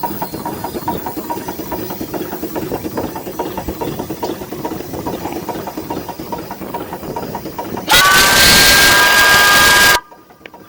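A steam engine running with a fast, steady beat, then, about eight seconds in, a steam whistle blowing loudly for about two seconds: several tones sounding together over rushing steam, cut off sharply.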